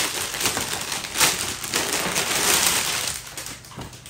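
Clear plastic bag crinkling and rustling as a dress is pulled out of it, with a few sharper crackles, dying down after about three seconds.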